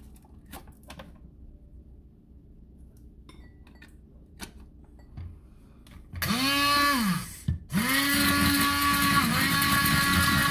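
T-fal immersion blender beating melted butter in a glass bowl. After a few faint knocks, its motor whirs up and back down in a short burst about six seconds in, then starts again and runs steadily.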